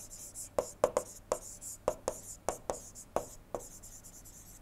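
A stylus writing handwriting on a tablet: a string of sharp taps, about two or three a second, with light scratching as the pen strokes.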